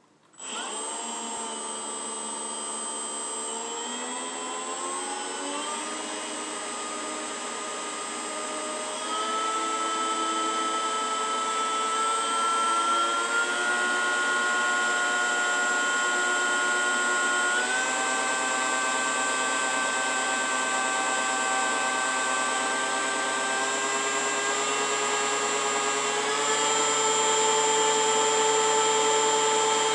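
Makita 18-volt brushless cordless leaf blower switching on about half a second in and running with a steady electric whine. It speeds up in steps three times, rising in pitch and getting louder.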